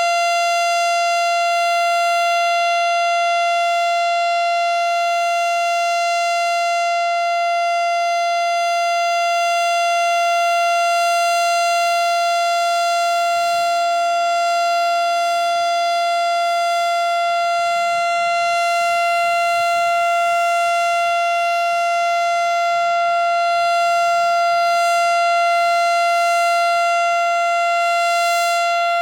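Federal Signal STH-10 single-tone mechanical warning siren sounding a steady, unwavering alert tone at full volume during a scheduled tornado siren test.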